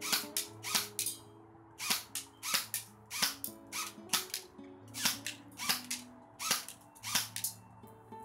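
Battery-powered airsoft Thompson M1 replica firing shot after shot, a sharp snap roughly two to three times a second at an uneven pace, over background music.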